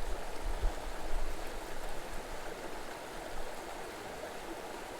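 Mountain creek rushing and splashing over boulders: a steady water noise, a little louder in the first half.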